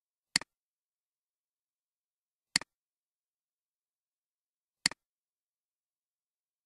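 Three computer mouse clicks about two seconds apart, each a sharp click followed at once by a softer second tick, with dead silence between.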